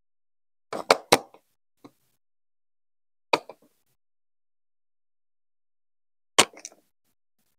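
Plastic Lego Duplo bricks clicking as they are pressed onto the studs of the baseplate and onto each other: a quick cluster of three sharp clicks about a second in, another click just after three seconds, and a loud one about six and a half seconds in, with silence between.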